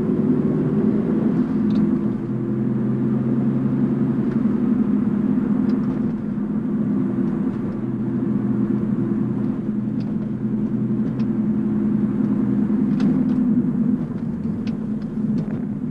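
Audi B5 S4's twin-turbo 2.7-litre V6 running at a steady, even pitch while the car cruises, with road rumble under it.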